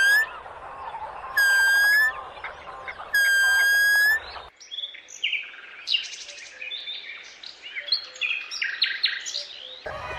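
Three long, loud, steady-pitched bird calls, each about a second, rising slightly at the end. After a cut comes a quieter jumble of short, varied chirps and tweets.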